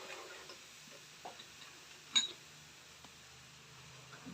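Spoon clicking lightly against a pan of heating milk: a few soft taps, the sharpest about two seconds in, over a faint low hum.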